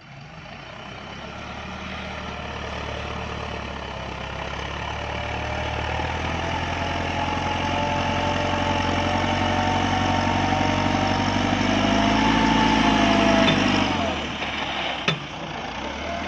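Massey Ferguson 385 tractor's diesel engine running, growing steadily louder for about thirteen seconds, then dropping off sharply about fourteen seconds in. A single sharp click follows about a second later.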